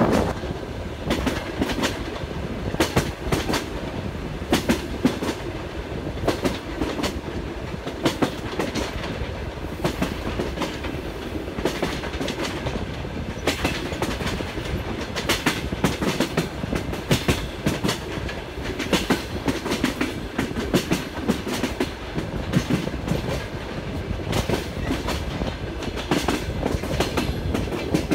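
Passenger train wheels clattering over rail joints, repeated sharp clicks, often in close pairs, over a steady running rumble.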